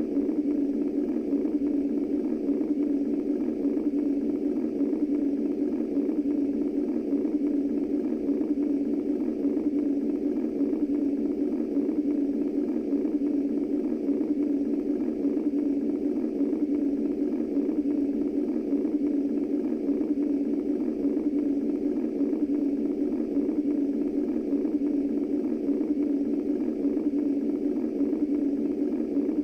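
Womb white noise for infant sleep: a steady, unbroken low whoosh, concentrated in one low hum-like band, with no heartbeat pulse or other rhythm.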